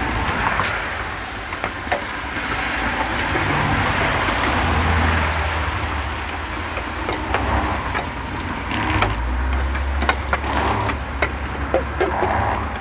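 Road traffic passing, its low rumble swelling twice, about four seconds in and again around nine seconds in, with scattered light clicks and taps throughout.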